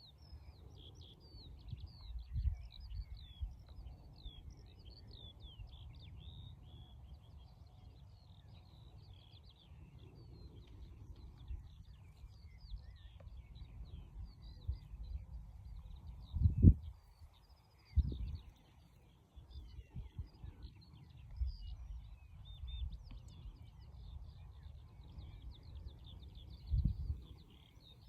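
Several small birds singing at once, a continuous chorus of high chirps and warbles, over a low rumble with a few louder low thumps, the loudest about sixteen seconds in.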